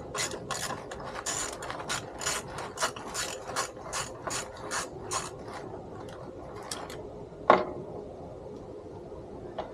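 Ratchet turning a T20 Torx bit to back out a loose brake-light screw, clicking steadily at about four clicks a second; the clicking stops about five seconds in, and a single sharp click follows near the end.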